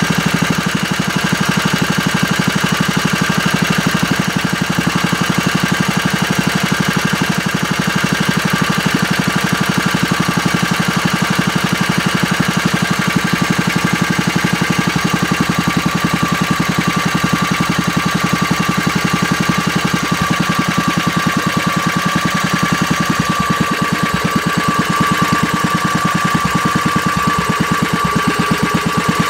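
W 239 engine with a Solex carburettor running steadily at idle, with an even, rapid firing beat and a thin whine that grows stronger in the second half. It is on its first run after the rebuild, with the carburettor not yet fully adjusted.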